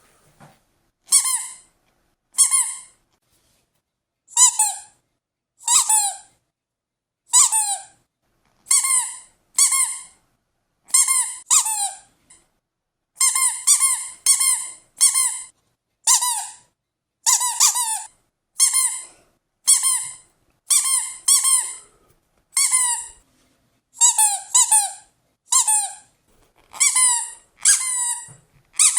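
A rubber squeaky toy squeaked over and over, about once a second, often two squeaks in quick succession, each a short high squeak that falls slightly in pitch.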